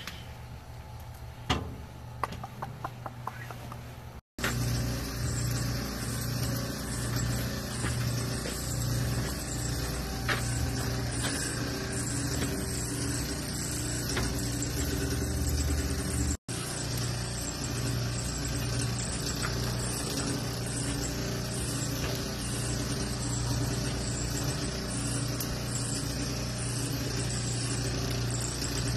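A quieter stretch with a few light clicks, then a steady low mechanical hum with a slow pulsing drone. The sound cuts out abruptly twice.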